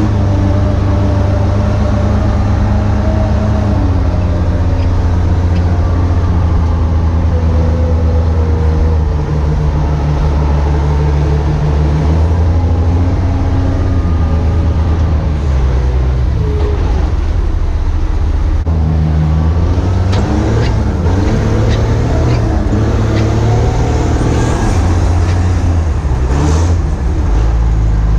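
Heavy vehicle engine running loud and close, its pitch rising and falling repeatedly as it revs up and settles back.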